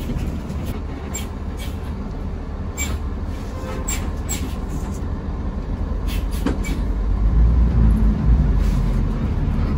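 Intercity bus engine running, heard from inside the driver's cab as a low rumble, with scattered light clicks and rattles; the engine gets louder from about seven seconds in.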